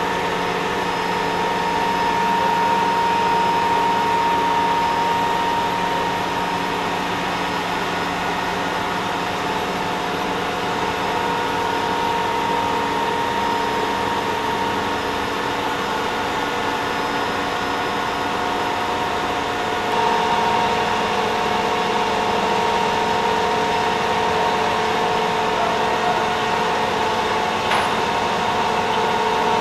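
Steady hum of heavy machinery in a ship's cargo hold, several constant tones over a hiss. A single sharp click near the end.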